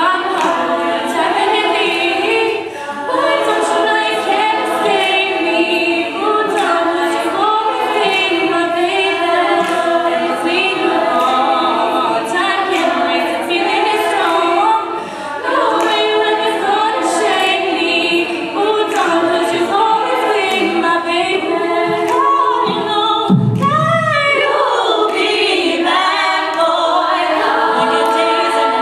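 All-female a cappella group singing: a solo voice over the group's backing harmonies, with a steady beat of sharp clicks. About three-quarters of the way through, a brief loud, low swoop cuts across the voices.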